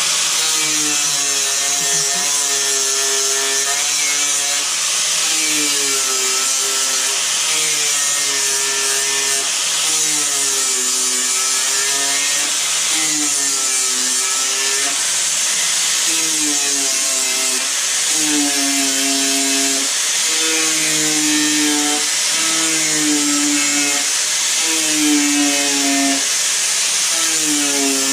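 Handheld power tool cleaning back rusty steel at the bottom of a car door: the motor runs steadily, its pitch dipping and recovering every second or two as it is pressed onto the metal, over a constant abrasive hiss.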